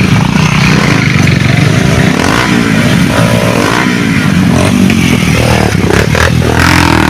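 An engine running steadily, its pitch rising and falling repeatedly, with a rushing noise like wind over it.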